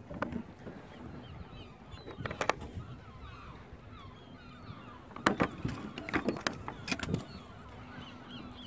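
A few sharp knocks and clicks on and around a small sailboat's deck, the loudest about two and a half seconds, five and a half seconds and seven seconds in, with birds chirping faintly in the background.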